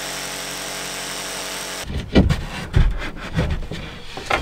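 Ryobi jigsaw running steadily as it cuts plywood, its motor whine holding one pitch, then stopping about two seconds in. It is followed by a run of irregular knocks and thumps as a plywood panel is handled and fitted.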